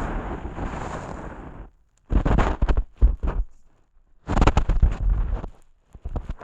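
Snow crunching and thudding, picked up by a contact microphone. A long rushing scrape runs through the first second and a half, then three bursts of crunchy knocks with a heavy low thud.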